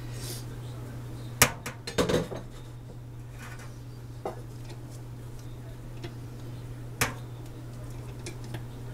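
Metal rotisserie spit and its forks clinking as a raw chicken is pushed onto the prongs: a sharp clink about a second and a half in, a quick cluster of knocks just after, and another clink about seven seconds in.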